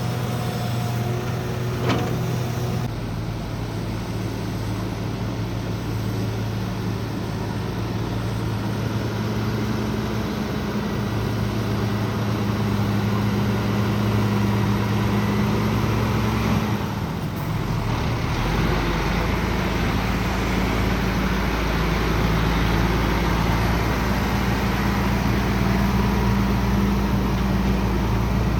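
Heavy diesel machinery, a hydraulic excavator and dump trucks, running steadily at work. Just past the middle the engine note dips briefly, then a deeper low rumble comes in and holds.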